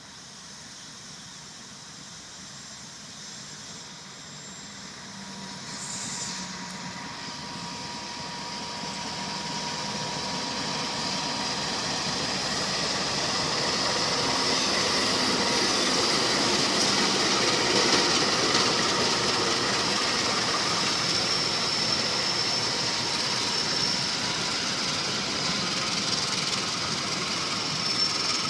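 Diesel locomotive hauling a train approaching, growing louder over about fifteen seconds, then its coaches rolling past. In the second half a thin, high, steady squeal of wheels on the curve rises and is strongest near the end.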